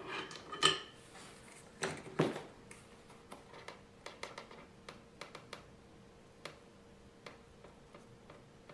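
Light clicks and taps of hands handling a small DC fan motor and a soldering iron while a wire is soldered to the motor's terminal. A few louder knocks come in the first two seconds, then fainter ticks follow about every half second.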